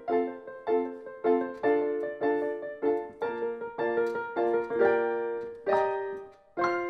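Background piano music: a light tune of evenly struck notes and chords, about two a second, with a held chord fading to a brief gap near the end before the next chord.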